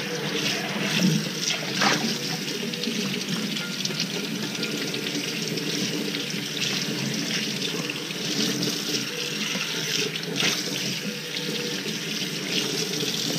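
Kitchen faucet running steadily onto a Lodge Blacklock cast iron skillet held in a stainless steel sink, water splashing off the pan as it is rinsed and rubbed by hand. A couple of brief knocks as the pan is handled.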